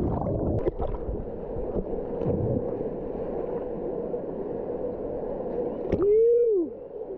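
Steady rushing water of a waterfall and its natural rock water slide. About six seconds in, a person gives one loud drawn-out whoop that rises and then falls in pitch.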